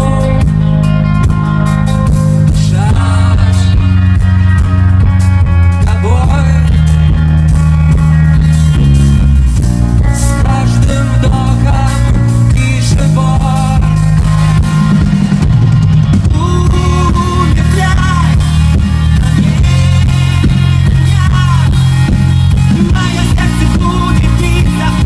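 Live rock band playing loudly, with electric guitar, drums and heavy bass under a male lead vocal, heard from the audience.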